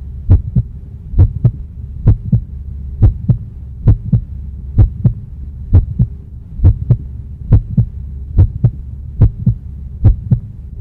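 Heartbeat sound effect: slow, steady paired thumps (lub-dub) about once a second over a low, steady hum.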